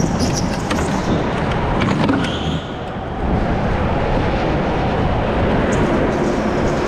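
Onboard noise of a go-kart driving at speed through the corners of an indoor track: a steady, loud rush with a short dip about two and a half seconds in.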